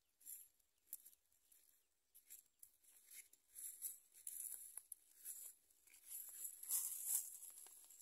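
Faint rustling and soft crackling in irregular short bursts, loudest near the end.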